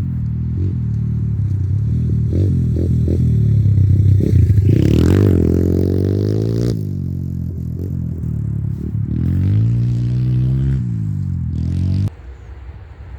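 Stomp 120R pit bike's 120cc single-cylinder four-stroke engine revving up and down repeatedly, with its hardest, highest rev a little before the middle. The sound drops away suddenly near the end.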